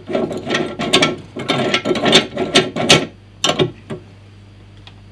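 Vise clamp on the base of a Parkside portable metal band saw being worked by hand: a quick run of rattling, ratchet-like clicks and knocks that stops a little before the end.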